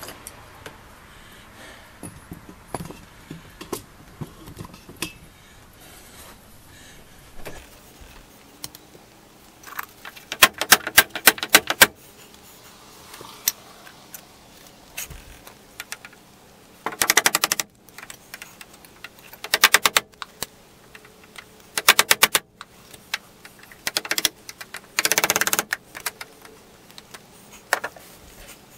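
Hand tools working on wooden window trim: faint scattered clicks, then from about ten seconds in, six or seven short bursts of rapid, evenly spaced sharp taps.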